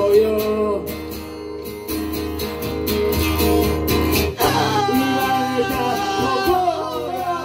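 Acoustic guitar strummed under a harmonica playing a held, bending melody line. The harmonica eases off in the middle and comes back strongly a little past halfway.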